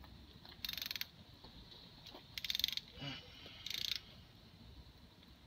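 Socket ratchet wrench clicking in three short bursts of rapid clicks as a bolt is turned.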